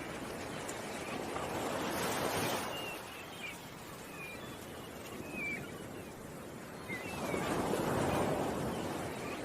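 Ocean waves washing in, swelling twice, with short bird chirps scattered throughout.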